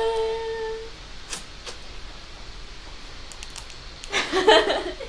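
A woman's held, sung note at the end of a drawn-out "ta-da", stopping about a second in, followed by a few light clicks and a brief burst of her voice near the end.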